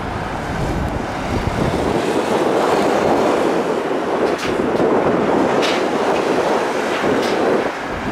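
Jet engines of a Boeing 737-800 on its takeoff roll: a loud, broad rumble that grows louder about two seconds in.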